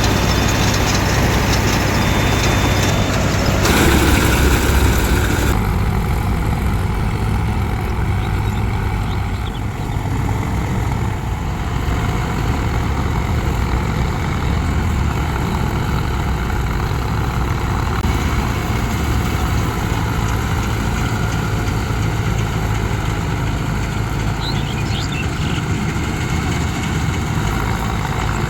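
Heavy farm-machinery diesel engine running steadily, with a louder, noisier stretch around four to five seconds in, after which the higher hiss falls away and the low engine note continues.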